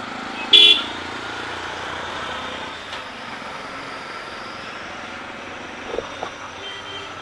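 A single short, loud vehicle horn toot about half a second in, over the steady engine and road noise of a motorcycle riding slowly through street traffic.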